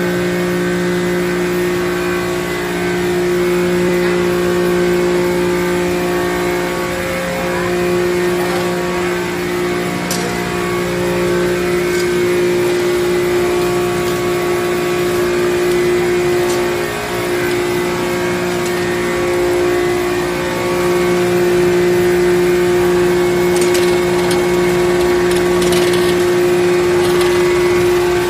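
Plantain-chip production-line machinery running with a steady, loud motor hum, with a few light clicks over it.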